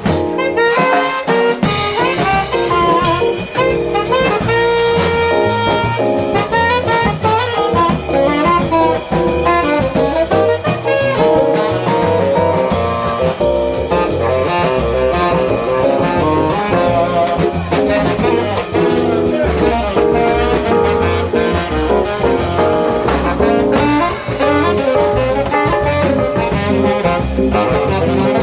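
Jazz quartet playing.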